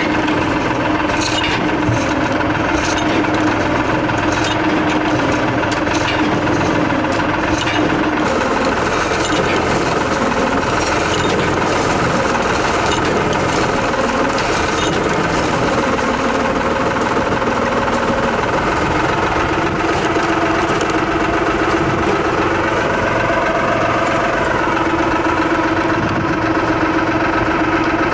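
Engine of a Dando 4000 cable percussion drilling rig running steadily. Its note drops for a stretch in the middle and comes back, and sharp metallic knocks come now and then in the first several seconds.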